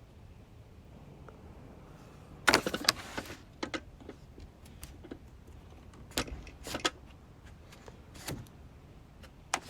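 Handling noises from the steam iron and its parts: a loud cluster of clicks and rattles about two and a half seconds in, then scattered single clicks and knocks through the rest.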